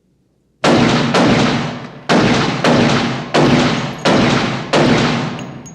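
Seven loud handgun shots fired in quick, slightly uneven succession, each one ringing out in the echo of an indoor firing range.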